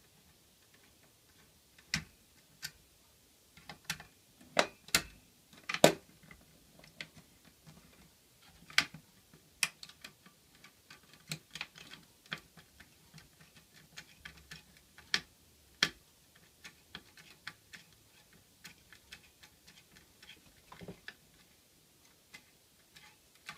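Irregular sharp clicks and ticks from a Phillips screwdriver loosening the captive screws of a desktop PC's CPU heatsink, a few of them louder snaps, the loudest about six seconds in.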